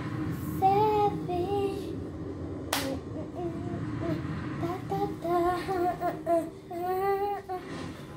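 A young girl singing a tune in drawn-out notes, in several short phrases, with one sharp click about three seconds in.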